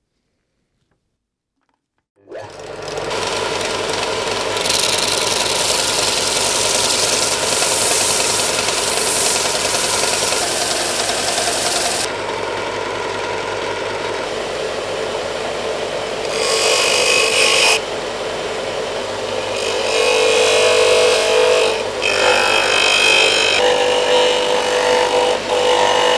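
A power tool running against metal during rust removal. It starts suddenly about two seconds in and keeps running, its pitch and brightness changing several times as it works.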